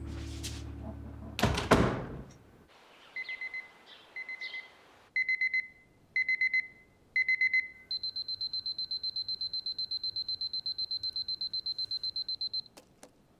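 A thud as background music ends, then an electronic alarm clock beeping: short groups of quick beeps about once a second, growing louder, then a faster, higher, continuous run of beeps that stops suddenly near the end, followed by a couple of clicks.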